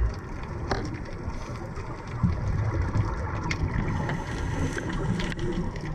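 Underwater ambience: a steady low rumble and hiss with a few short sharp clicks.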